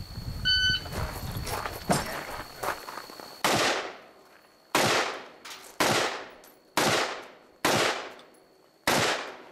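Shot timer beeps once. About three seconds later a rifle fires six shots at an even pace, roughly one a second, each trailing off in a short echo.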